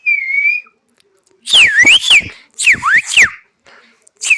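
A dog making high, whistle-like whining calls: a short whistle at the start, then loud calls that swoop down and back up in pitch, one about a second and a half in and another a second later, with a third starting at the end.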